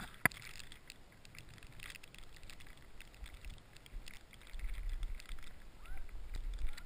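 Skis sliding and scraping over packed snow, heard through a helmet-mounted GoPro, with scattered small ticks and one sharp click about a quarter second in. Wind rumble on the microphone builds from about halfway.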